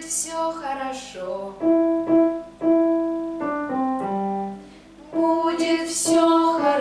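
Digital piano playing chords together with a woman's singing voice in a vocal lesson. A sung phrase opens, a few struck piano chords ring out in the middle, and the voice comes in again about five seconds in.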